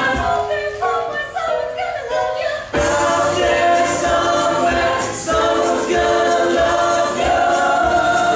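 A group of voices singing a musical-theatre number over a steady beat, with long held notes; the fuller ensemble comes in suddenly about three seconds in.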